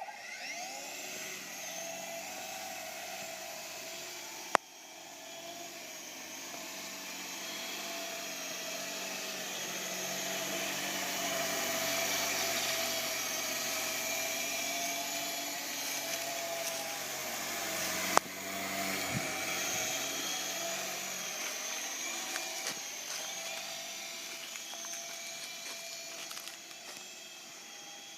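U12A radio-controlled helicopter's motor and rotors whining steadily, rising in pitch as they spin up at the start and swelling louder through the middle of the flight. Two sharp clicks cut through it, once a few seconds in and again past the middle.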